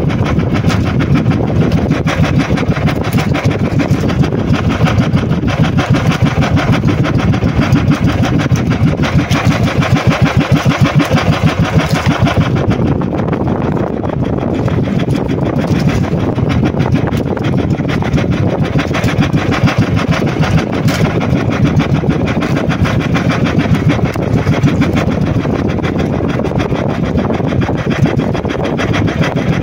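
Engine of a motorized outrigger fishing boat running steadily with a fast, even chugging beat, its tone dulling slightly about halfway through.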